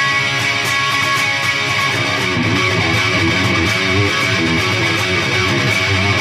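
Electric guitar played through a Peavey Triple XXX II tube amp head into a two-speaker cabinet: a continuous run of distorted strummed chords and riffs.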